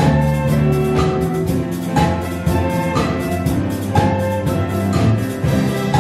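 School lab band playing live: violins, flute, saxophones, acoustic and electric guitars, bass guitar and keyboards over a steady drum beat, with chords held across the beat.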